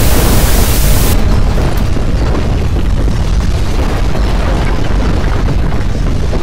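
Loud, continuous rough rumble with a heavy low end. About a second in, the hiss above it cuts off sharply and the rumble carries on.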